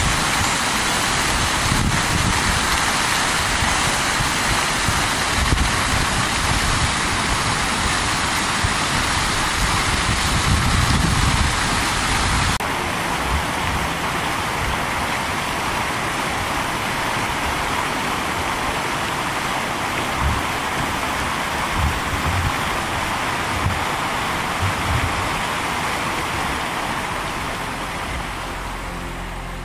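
Steady rushing outdoor noise with irregular low thumps of wind buffeting the microphone, its tone shifting slightly about twelve seconds in.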